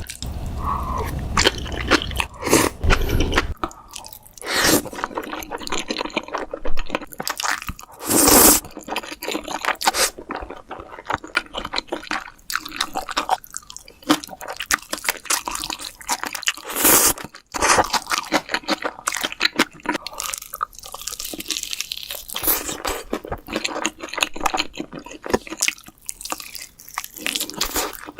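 Close-miked eating sounds: crisp fried chicken crunching in repeated bites and being chewed, with a few especially loud crunches. A low rumble under the first few seconds stops abruptly.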